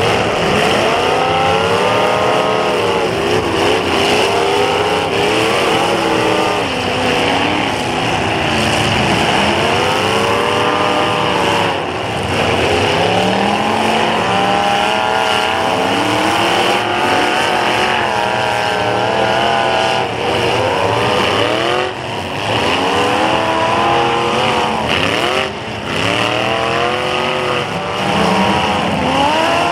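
Several demolition derby cars' engines revving hard, their pitch rising and falling over and over as the cars accelerate and back off on the dirt, several engines heard at once.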